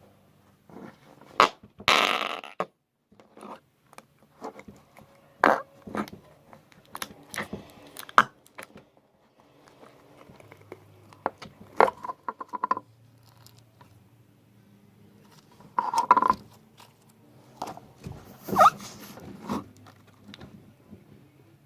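A series of short, irregular fart sounds, one of them a rapid buzz about twelve seconds in, over a faint low hum.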